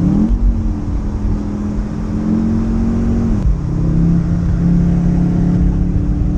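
Car engine heard from inside the cabin while driving. Its note rises just after the start, holds steady, then drops about three seconds in and runs on at the lower pitch.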